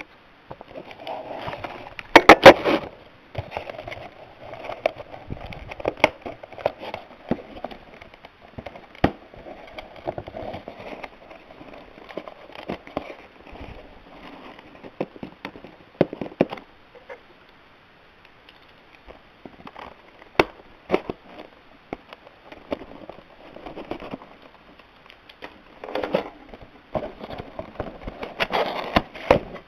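Packaging being handled and opened: crackling plastic and cardboard with irregular sharp clicks and snaps, loudest in a burst about two seconds in.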